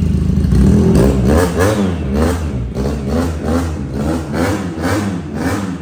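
367 cc water-cooled twin-cylinder EFI engine of a Chinese Ducati GTR-replica sport bike, breathing through an SC-Project aftermarket exhaust, revved with quick throttle blips about twice a second. Each rev climbs and falls back over a steady low idle.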